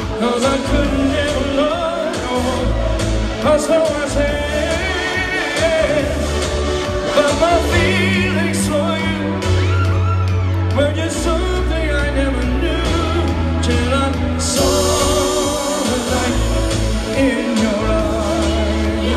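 Live pop music: a man singing over a techno dance beat with a heavy, pulsing bass line.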